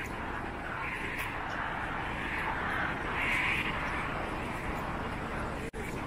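Busy city street ambience: a steady wash of passing traffic. The sound drops out for an instant near the end.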